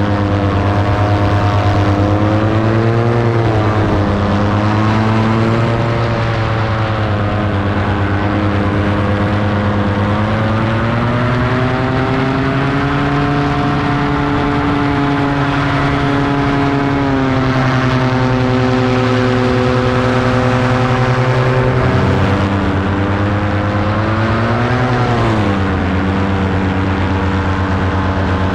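Paramotor engine and propeller running steadily close by, the pitch rising and falling several times as the throttle is eased on and off in flight.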